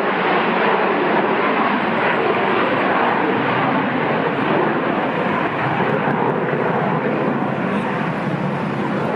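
Boeing 727's three JT8D turbofan engines at takeoff power: a loud, steady jet roar that eases slightly toward the end.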